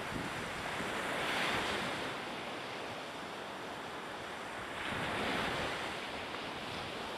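Outdoor harbour noise: steady wind buffeting the microphone with a wash of water, swelling twice, about a second in and again about five seconds in.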